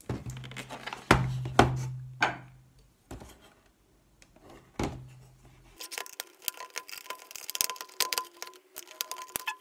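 Sharp plastic knocks and clicks from a car instrument cluster's plastic housing as it is handled and its clips are freed, four of them in the first five seconds. From about six seconds in, music takes over, with fast ticks and a held high note.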